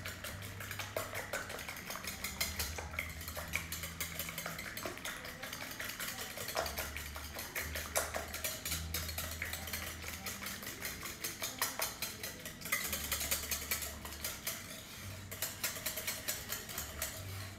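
Wire balloon whisk beating eggs and crème fraîche in a ceramic bowl: a rapid, steady clicking and scraping of the wires against the bowl.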